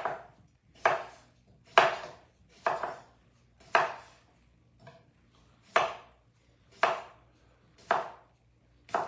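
Knife chopping through food onto a cutting board in a steady rhythm, about one cut a second.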